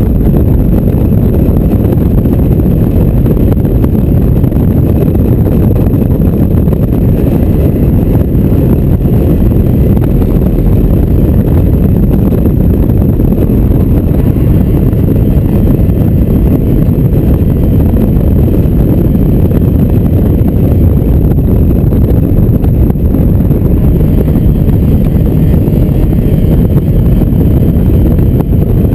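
Wind buffeting the microphone of an open-top Mazda MX-5 at speed, with its engine running underneath. The noise is loud, steady and deep throughout.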